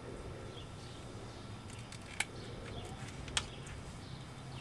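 Two sharp snips about a second apart as a cutter goes through 1/4-inch polyethylene drip tubing, over a low steady hum.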